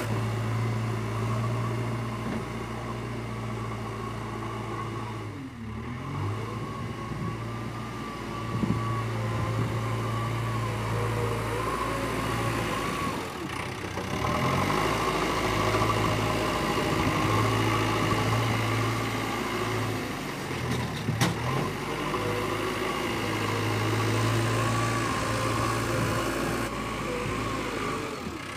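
Diesel engine of a JCB 3DX backhoe loader running steadily as it works its front loader bucket in loose earth.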